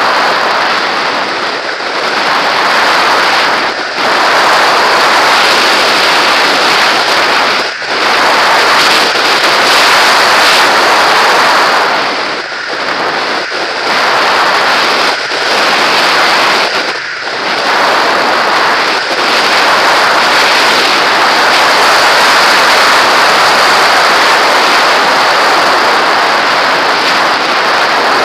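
Rushing wind noise from air streaming over a camera mounted on a model glider's fuselage in flight, steady and loud, with a few brief dips as the glider manoeuvres.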